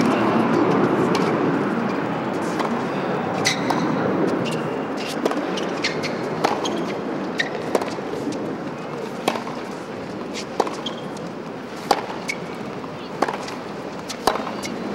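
Tennis rally heard at court level: the ball struck by racquets back and forth, a sharp crack about every second and a bit, with lighter bounces in between. Crowd noise, loud at the start, dies away over the first few seconds as the point gets going.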